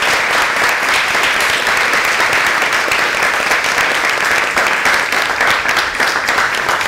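A group of people applauding, a steady sustained round of hand clapping.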